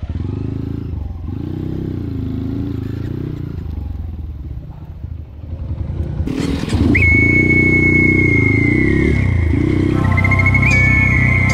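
Dirt bike engine revving up and down as the bike climbs a trail. About six seconds in, a song comes in over the engine with a held high melody line.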